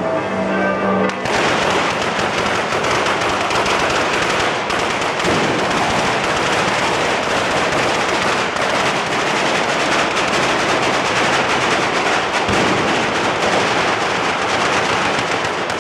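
Church bells ringing. About a second in, they are swamped by a dense, continuous rattle of firecrackers and fireworks going off on the ceremonial cart. The rattle keeps up without a break until it drops away at the end.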